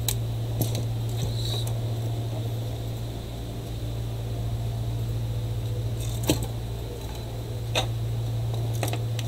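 Steady low electrical hum with a few light clicks and taps as test leads and small tools are handled on a workbench; the sharpest tap comes about six seconds in.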